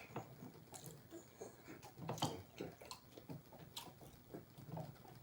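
Faint close-up chewing of crispy fried food, with irregular soft crunches and mouth clicks.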